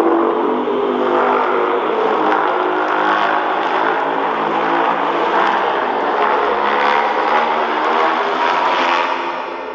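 Godzilla's roar sound effect from the 2014 film: a long monster roar that starts abruptly, holds steady and loud for about nine seconds, then fades away near the end.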